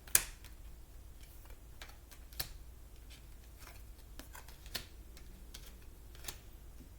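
Oracle cards being handled: a sharp card click just after the start, then a few lighter clicks and taps spread out over the next several seconds.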